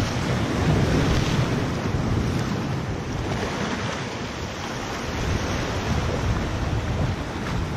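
Waves surging and splashing against the rocks of a jetty, with wind buffeting the microphone in a low, uneven rumble.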